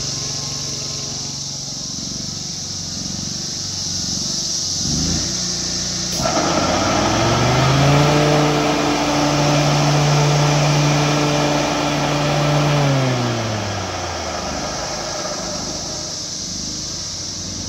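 Exmark Lazer Z zero-turn mower's engine running, speeding up about five seconds in, holding high and steady, then dropping back toward idle near the end. A rushing noise comes in abruptly about six seconds in and fades out later.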